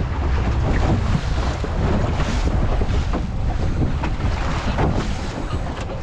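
Wind buffeting the microphone over a steady rush of water along the hull of a small boat under way on open sea.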